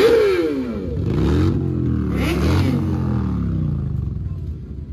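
Motorcycle engines revved in sharp blips, each rev jumping up in pitch and then falling away. There is a loud rev at the start and overlapping revs about one and two seconds in, then the engines drop back toward idle.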